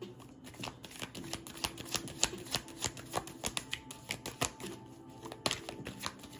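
A deck of tarot cards being shuffled by hand: a run of quick, sharp card clicks, about three a second, that stops about five and a half seconds in.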